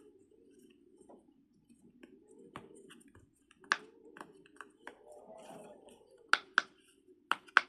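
Pop-it fidget toy being pressed: a scatter of sharp little pops and clicks that grow louder and come closer together in the last couple of seconds, over a faint steady hum.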